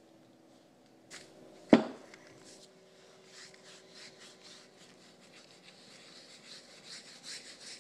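A cloth rag rubbing finishing oil onto a wooden bee house in quick back-and-forth strokes, growing louder toward the end. A single sharp knock, the loudest sound, comes just under two seconds in.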